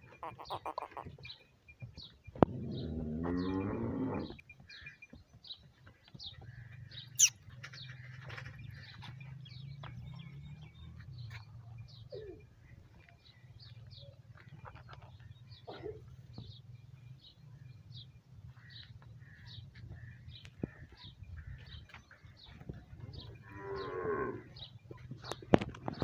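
A bull moos loudly for about two seconds, starting a little over two seconds in, and gives another, shorter call near the end. Short high bird chirps repeat about one and a half times a second throughout, over a low steady hum, with a sharp click about seven seconds in.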